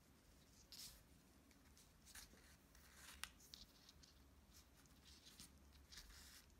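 Near silence with a few faint, brief scratches and rustles: a needle and waxed braided thread being drawn through soft leather as the piece is handled.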